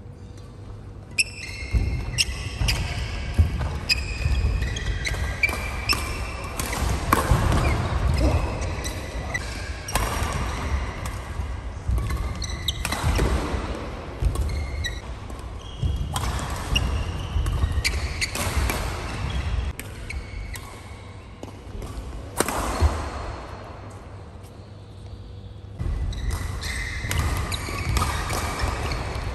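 Badminton rally in a large hall: racket strikes on the shuttlecock, shoes squeaking on the court mat and players' running footsteps, with a quieter lull about three-quarters through.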